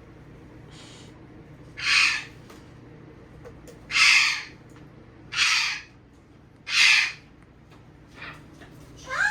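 Trigger spray bottle of disinfectant spraying in short hissing spurts, about five pulls roughly a second and a half apart, the first faint.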